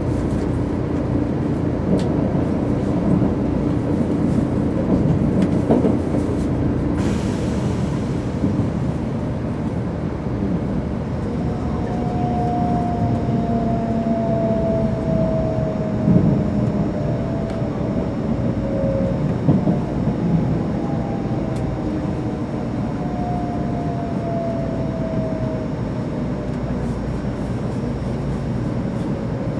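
Running noise of a 300 series Shinkansen heard inside the passenger car: a steady rumble of wheels on the rails. There is a brief hiss about seven seconds in, and from about the middle a few faint tones slowly fall in pitch.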